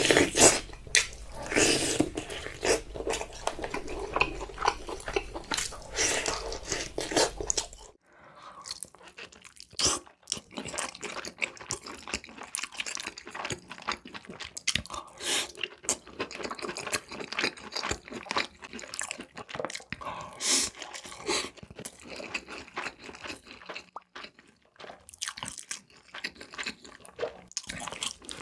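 Close-miked chewing and crunching of food, a dense run of bites and crackles. About eight seconds in the sound changes abruptly, the low hum drops away, and the crunching carries on quieter.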